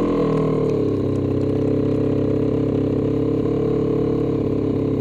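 Snowmobile engine running while being ridden; its note drops during the first second, then holds steady.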